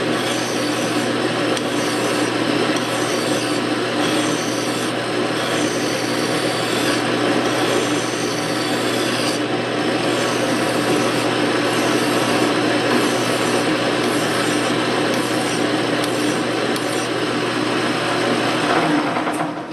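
Flat hand file rubbing on a steel lathe spindle turning in an Atlas metal lathe, a steady rasping over the hum of the running lathe as the old spindle is cleaned up. The sound cuts off at the very end.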